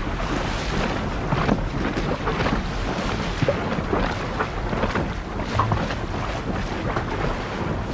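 Wind and open sea: a steady rush of wind with waves splashing and slapping irregularly.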